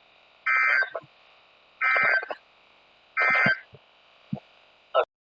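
Three short bursts of Emergency Alert System digital data tones (the SAME end-of-message code) over a radio, each about half a second long and about a second and a half apart, with faint hiss between them. A click near the end, then the sound cuts off.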